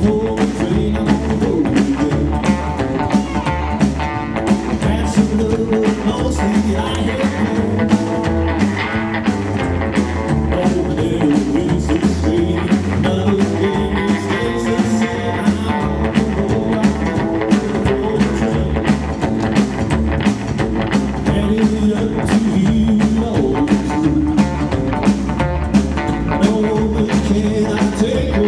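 Live rockabilly band playing: electric guitar over an upright double bass and a drum kit keeping a fast, steady beat.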